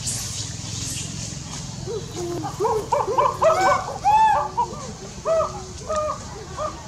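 A quick series of short animal calls, each rising and then falling in pitch, starting about two seconds in and going on to near the end.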